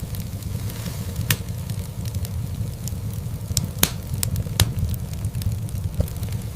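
Wood fire crackling in a fireplace: a steady low rumble of the flames with sharp pops and snaps scattered through it, the loudest a little before four seconds in.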